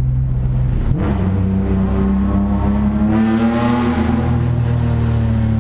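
BMW engine running through a BimmerWorld race exhaust under acceleration: about a second in the engine note jumps up, keeps climbing slowly, then eases off a little near the end.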